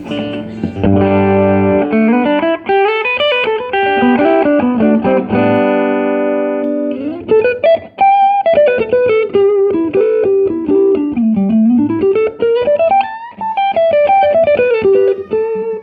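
Electric guitar, a Telecaster, played through tweed-style tube amps: held and strummed chords for about the first seven seconds, then a single-note melodic line that climbs and falls until the playing stops at the end.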